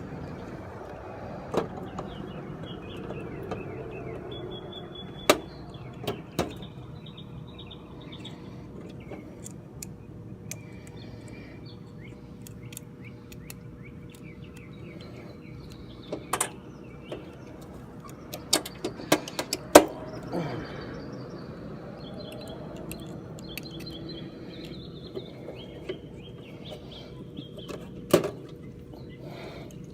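Scattered sharp clicks and snaps from hands working the wiring and fan control board in an AC condenser unit, with a quick cluster of them about two-thirds of the way through. Birds chirp in the background over a faint steady hum.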